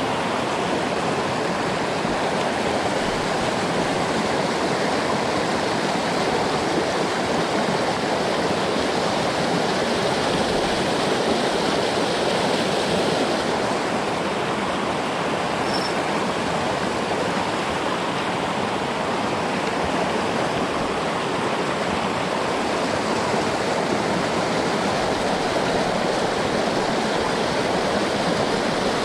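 Steady, even rush of a jungle headwater stream flowing over rocks.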